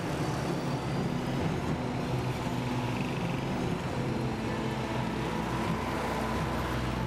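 Busy street traffic: a steady noise of cars and a pickup truck driving past.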